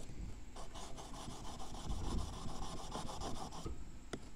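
Steel chisel rubbed back and forth on a fine sharpening stone wet with honing solution: quick gritty scraping strokes that start about half a second in and stop near the end. This is the final fine-stone honing that takes off the burr left by the micro bevel.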